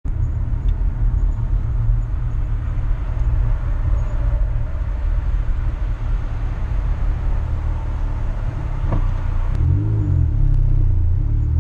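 Steady low rumble of a car's engine and tyres on the road, heard from inside the cabin while driving. About nine seconds in there is a single click, and near the end low tones that rise and fall join in.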